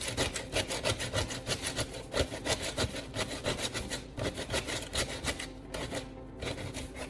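Coarse P80 sandpaper rubbed back and forth over a cured patch of super glue and baking soda filler on a plastic fender, smoothing the high spots. The strokes are quick and even, about four or five a second, and grow weaker in the last second or so.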